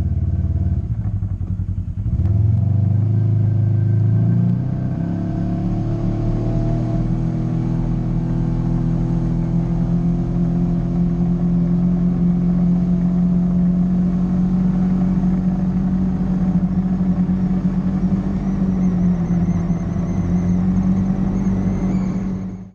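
Polaris RZR 900 side-by-side's engine running under throttle while driving a dirt trail: its pitch climbs for a couple of seconds as it speeds up, then holds steady at cruising speed.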